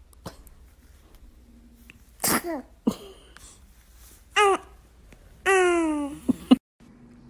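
A baby sneezing three times, each sneeze a short squeaky burst whose pitch falls away; the third is the longest.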